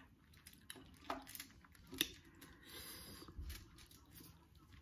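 Faint wet squishing of a metal fork twirling sauce-coated spicy instant noodles, with a few soft clicks of the fork against the foil-covered plate in the first two seconds.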